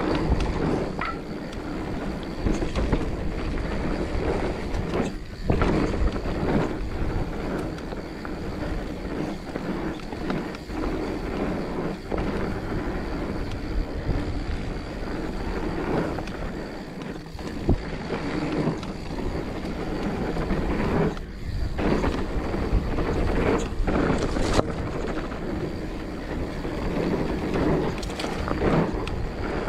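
Mountain bike riding down a dirt trail: knobby tyres rolling over packed dirt and leaves, the bike rattling over bumps, and wind on the microphone, with a few sharp knocks.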